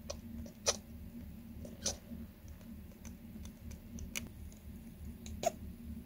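Golden hamster making short, sharp hiccup-like squeaks at irregular intervals of one to two seconds, four loud ones in all. The owner takes these hiccups for a danger sign of laboured breathing.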